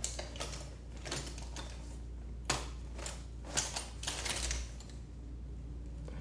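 Soft, irregular clicks and rustles of small objects being handled, several in quick succession with short gaps, over a low steady hum.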